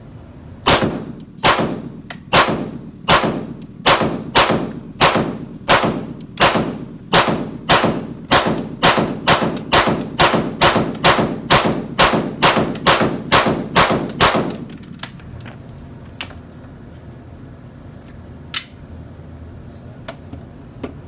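A 9mm Glock 17 pistol fired about thirty times, emptying a 30-round ETS magazine without a stoppage. The shots come about one a second at first, then quicken to roughly three a second, each echoing in an indoor range. A few light clicks follow, and one sharp click comes near the end.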